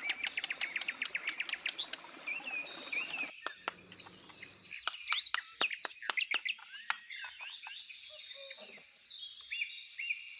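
Birds chirping and singing: a fast run of repeated chirps for about the first two seconds, then scattered, varied tweets and whistles.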